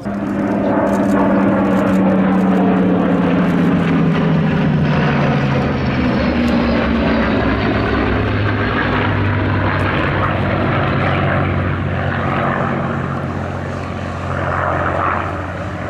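A formation of WWII piston-engine fighters (an F4U Corsair, a Spitfire and an Fw 190) droning loudly as they fly past. The engine note falls in pitch over the first few seconds as they pass, then holds lower and steadier.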